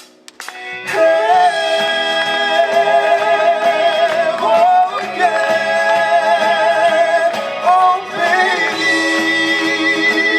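Song with singing over a backing track: three long, wordless held notes with vibrato, each sliding up into pitch, after a brief quiet start with a few clicks.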